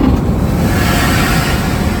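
Cabin noise of a Boeing 737-900 in flight: a steady low rumble of engines and airflow, with a rushing hiss that swells about half a second in.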